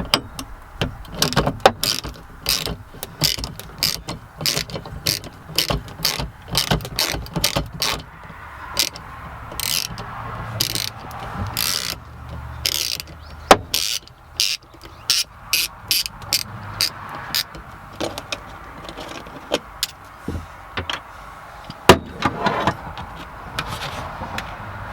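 Hand tools and plastic interior trim clicking and clattering while a MINI Cooper's center console is unbolted and pulled free: many sharp, irregular clicks, thicker in some stretches than others.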